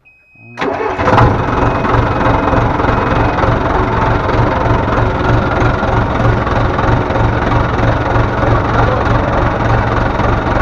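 Loader tractor engine starting after a brief warning beep, catching about half a second in and then idling steadily with a heavy low throb. The vibration comes from the large hydraulic pump, whose mounting bolts have worked loose.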